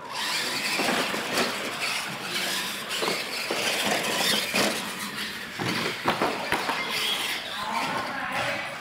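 Radio-controlled monster trucks launching off the line and racing on a concrete floor: electric motors, gears and tyres whirring in a steady noisy whir that starts suddenly. A few sharp knocks come about six seconds in.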